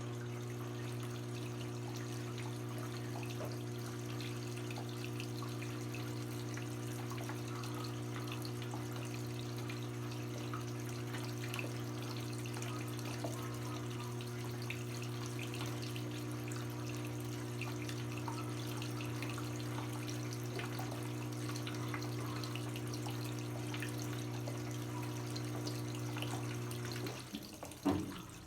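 Brastemp BWK17 17 kg washing machine with water rushing through it and a steady low hum. Near the end the hum and water stop abruptly with a clunk, and it goes quieter.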